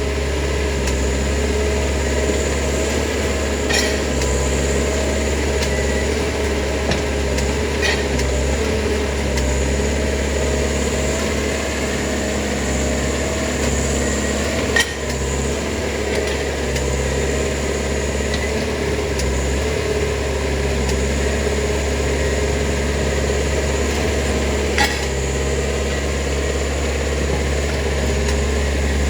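Railroad maintenance-of-way track machines running with a steady engine drone, with a few sharp metallic clanks, about four in all, as tie plates and spikes are handled.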